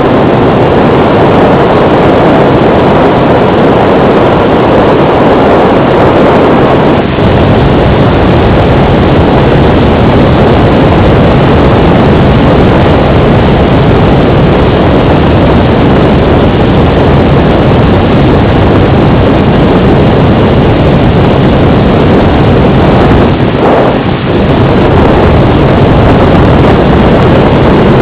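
Onboard sound of an FPV model aircraft in flight: the motor and propeller running steadily with wind rushing over the onboard microphone, loud and distorted. The sound dips briefly twice.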